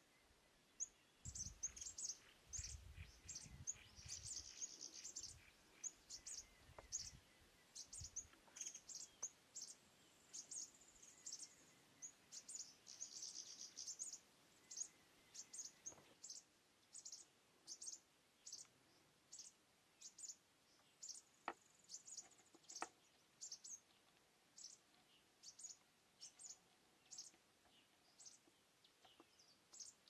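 Small songbirds chirping: short, high chirps repeated about once or twice a second, with a low rumble through the first several seconds.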